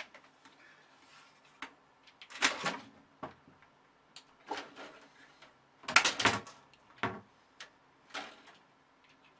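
A cat's claws scrabbling and scraping against a computer tower case and curtain as it jumps up and drops back down, in several short spells of clatter, loudest about two and a half seconds in and again about six seconds in.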